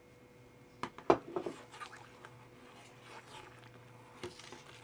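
A small metal bowl clinking and knocking against the rim of a stainless steel stockpot as hops are tipped and tapped out into the boiling wort: a quick flurry of sharp clinks about a second in, then lighter rustling and tapping, and one more clink near the end.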